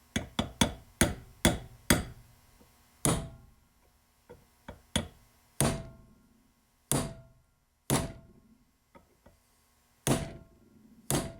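Hammer blows on the seized spindle bearing of a Case 224 mowing deck, struck to crack its notched race apart. Six quick blows in the first two seconds, then harder single blows about a second apart, several with a short metallic ring.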